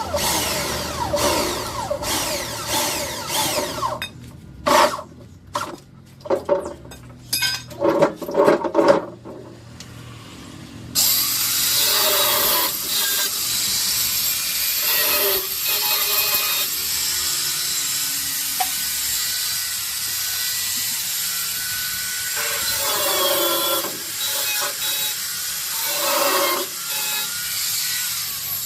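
Steel fabrication work: a quick series of sharp metal knocks, then a power tool working steel runs with a steady hiss from about eleven seconds in.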